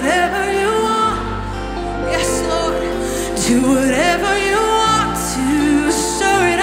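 Live worship band playing a slow song: a vocalist sings long, bending lines over keyboard and guitars, with a deep sustained bass that changes note about a second in and again near five seconds.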